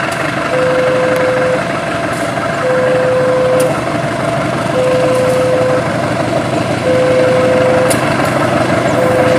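CC206 diesel-electric locomotive running as it hauls a passenger train in, engine and wheels on the rails making a steady loud rumble. Over it, a single electronic warning beep repeats regularly, each about a second long with about a second's gap.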